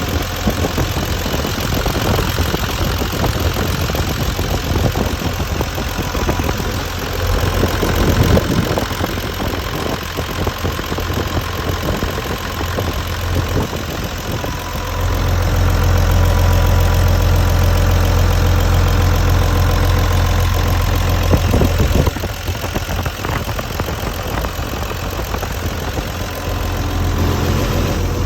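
Diesel engine of a Hitachi EX200-2 excavator, an Isuzu 6BD1 inline-six, running. About halfway through it gets louder and steadier for several seconds, then drops back to its earlier level.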